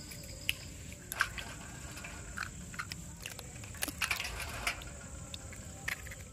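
Eggs being cracked and emptied one after another into a metal bowl: scattered sharp taps and cracks of shell with soft wet plops as the eggs drop in.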